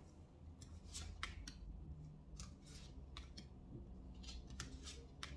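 Tarot cards being dealt one by one from the hand onto a table: a string of faint, quick flicks and taps, about a dozen, as each card snaps off the deck and lands on the pile.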